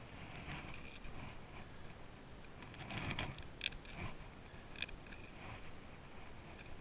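Fillet knife slicing a rockfish fillet off along the backbone and rib bones: soft scraping and cutting, with a few sharp clicks about halfway through.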